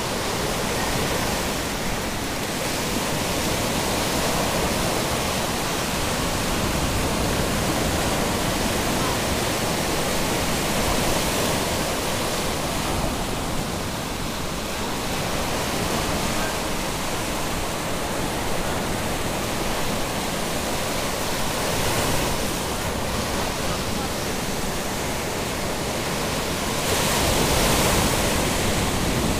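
Ocean surf breaking and washing up a sandy beach, a steady rushing that swells louder near the end.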